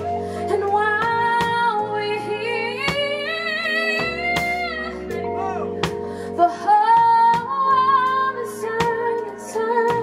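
Live band music: a woman singing long held notes with vibrato into a microphone, over electric guitar, drum kit and a low bass line, with scattered drum and cymbal hits.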